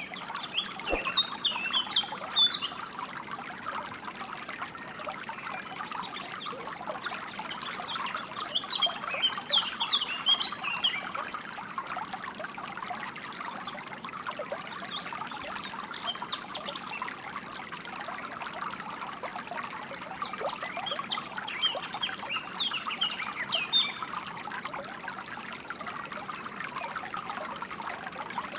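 Flowing water trickling and babbling steadily, with songbirds chirping in four short bouts of quick, high notes.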